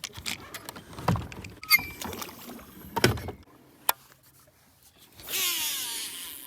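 Fishing gear handled on a boat deck with scattered clicks and knocks, then about five seconds in a cast: a rushing hiss with the baitcasting reel's spool whirring and falling in pitch as it spins down.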